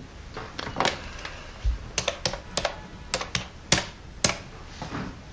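Buttons on a telephone keypad being pressed one by one to dial a number: about eight sharp clicks at uneven intervals.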